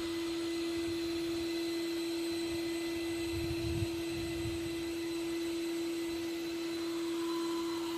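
Skyvac gutter vacuum running steadily: an even motor whine held on one constant tone over a light rush of air.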